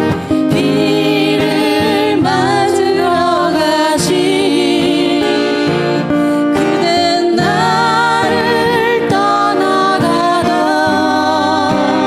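Live acoustic guitar ballad music, with a melody line held in two long phrases with vibrato over sustained chords.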